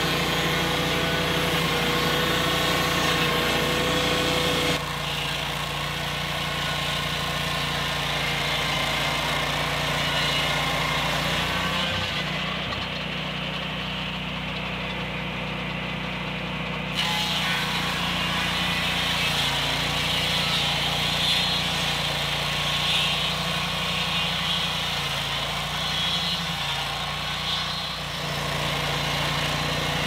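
Lucas Mill portable swing-blade sawmill: its engine running steadily at full speed while the circular blade cuts along a log, taking off a slab. The sound drops abruptly a little about five seconds in and comes back up around seventeen seconds.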